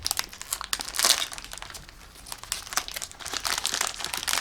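Plastic candy packaging crinkling and rustling as it is handled, in a run of quick crackles, with the loudest crinkle about a second in.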